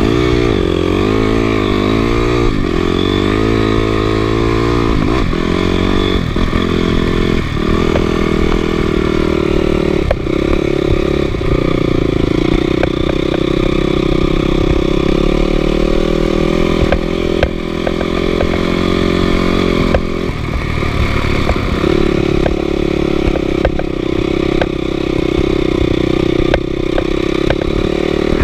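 Motorcycle engine running under way. Its revs rise and fall repeatedly over the first several seconds, then hold mostly steady apart from a brief dip about twenty seconds in.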